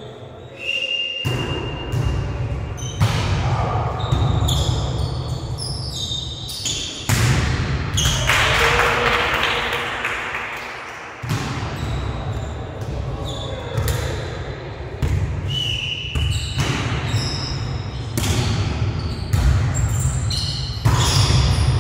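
Volleyball rally in a large gym hall: the ball is struck again and again by hands and arms, each hit a sharp smack that rings out in the hall's echo.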